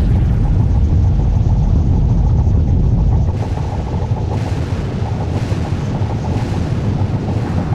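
A loud, dense, low rumbling roar of layered explosion sounds. About three seconds in, the deepest bass thins and a hissing roar swells and fades roughly once a second.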